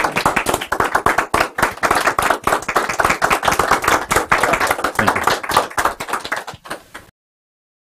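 A small audience applauding with many overlapping hand claps, cutting off suddenly about seven seconds in.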